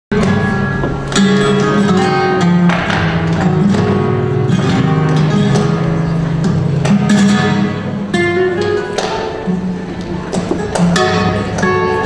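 Live flamenco music with guitar strumming and picked runs, marked by frequent sharp strokes.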